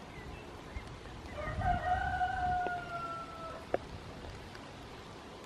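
A rooster crowing once: one long call of about two seconds that rises briefly at the start, then holds and slowly falls in pitch.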